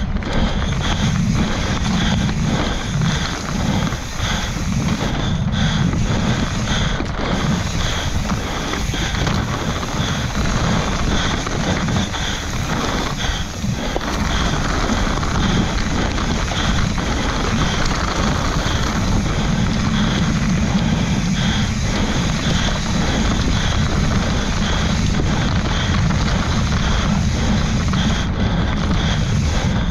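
Wind buffeting the microphone over the rumble and rattle of a Yeti SB140LR mountain bike riding fast down a dirt trail.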